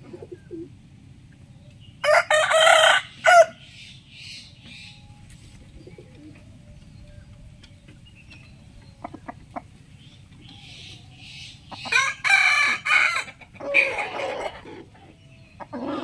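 A rooster crowing twice: a crow about two seconds in lasting about a second and a half, and a longer crow with a short break about twelve seconds in.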